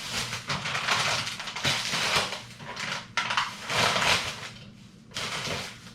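Crinkling and rustling of food packaging being handled and emptied into the trash, in three bursts.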